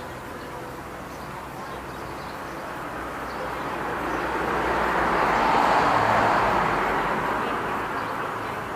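A vehicle passing by: a smooth rushing noise that swells over a few seconds, peaks near the middle, then fades away.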